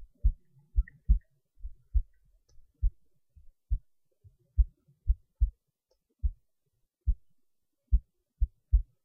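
Heartbeat recorded close-up: low, dull thumps, a little over one beat a second, some falling in quick lub-dub pairs.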